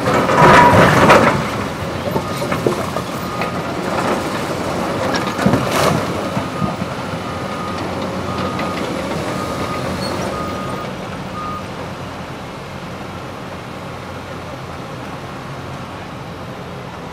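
Caterpillar hydraulic excavators working concrete demolition rubble: heavy clattering knocks and a brief metal scrape in the first second or so, another hard knock about six seconds in, over diesel engines running steadily. A faint beep repeats about twice a second through the middle, and the machine noise eases off in the second half.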